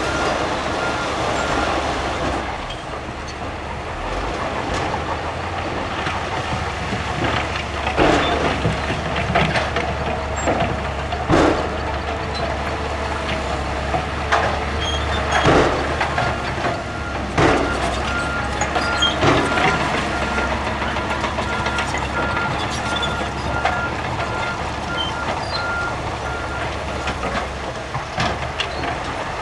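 Heavy earthmoving machinery at work: a diesel engine runs steadily under a reversing alarm that beeps at the start and again through much of the second half, with half a dozen loud clanks of rock and metal in the middle.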